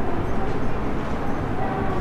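Steady low rumble and hum inside a subway train car, with a faint steady whine above it.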